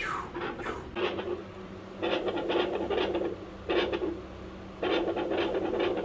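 Dog's chest heard through a stethoscope: rasping, rubbing noise in irregular bursts up to about a second long, separated by short quieter gaps.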